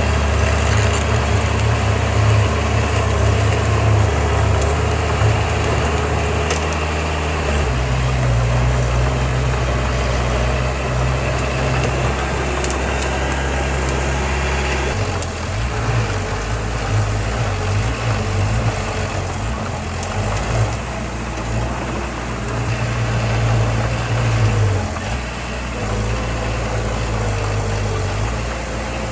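Heavy diesel engine of earthmoving machinery running steadily. Its low note shifts about 7 s and again 15 s in.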